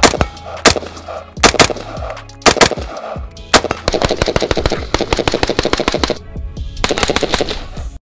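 AR-15 rifle with a 14-inch pinned-and-welded barrel firing: several single shots spaced about a second apart, then two rapid strings of about ten shots a second. The first string, from about four seconds in, runs about two seconds; the second, near the end, runs about a second.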